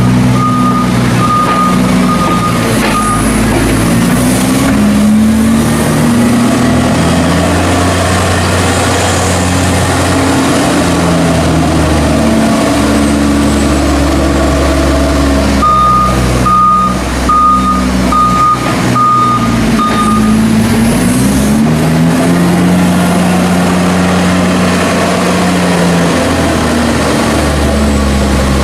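Loader's diesel engine working hard, its pitch rising and falling as it drives back and forth rolling the maize silage clamp. Its reversing beeper sounds near the start and again for a few seconds about two-thirds of the way through.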